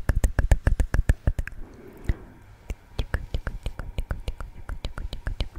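Close-miked wet mouth sounds: rapid lip and tongue clicks and smacks, several a second, easing off briefly about two seconds in before picking up again.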